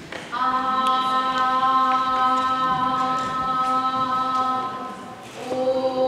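A woman's voice sings one sustained note around middle C, rich in evenly spaced overtones. A little after five seconds it breaks off and resumes on the same pitch with a changed vowel, so that the strongest overtone moves down to the octave above the note, showing the mouth acting as a resonator that colours the voice.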